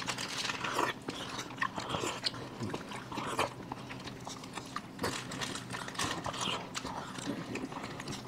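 Eating sounds of ice cream being eaten: mouth and chewing noises with scattered light clicks, and small scrapes from a wooden spoon in a cup.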